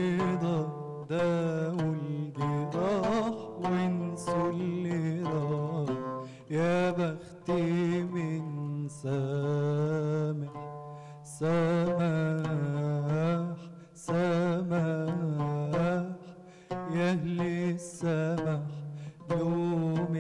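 A man singing an Arabic song in long, ornamented phrases with vibrato, accompanied by an oud.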